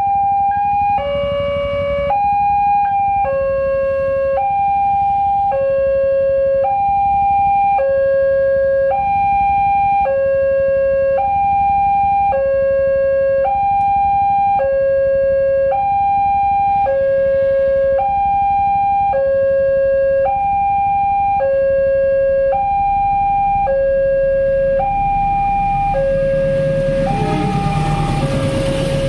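Railway level-crossing warning alarm sounding a steady two-tone hi-lo chime, each tone held about 0.7 seconds, signalling that the crossing is closed for an approaching train. Near the end, the rumble of a KAI diesel locomotive crossing the road rises beneath it.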